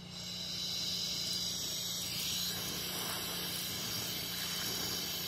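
Propane-and-oxygen Hoke torch flame hissing steadily. It grows louder over the first second as the flame is adjusted up to a big, hot flame.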